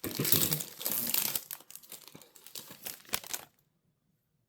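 Topps trading-card pack wrapper being torn open and crinkled, loudest in the first second or so, with many small crackles; it stops abruptly about three and a half seconds in.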